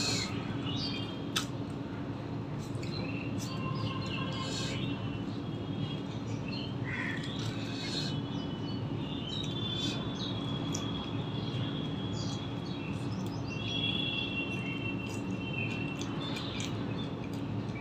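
Small birds chirping and whistling in the background throughout, over a steady low hum, with soft clicks and chewing from eating paratha and vegetables by hand.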